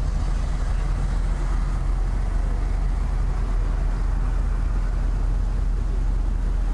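A car being driven on the road: a steady low rumble of engine and tyres with a rushing noise over it.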